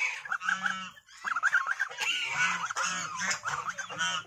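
White domestic goose honking, a run of short calls one after another, with a short pause about a second in.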